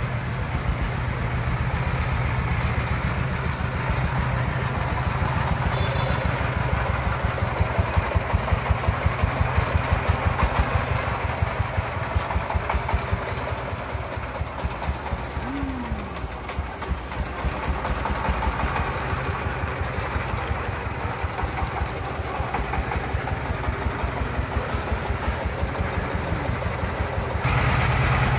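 Engine of a small three-wheeled brick-carrying dump truck running with a steady, rapid chugging beat as it drives loaded. The engine is louder for a few seconds about a third of the way in, and louder again near the end.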